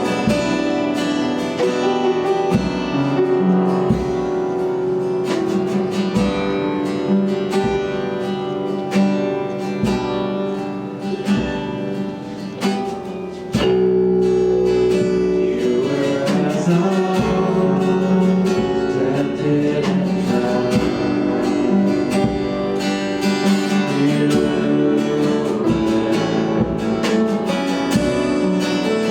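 Worship music led by strummed acoustic guitar, with singing at times. It eases off briefly and comes back fuller about thirteen seconds in.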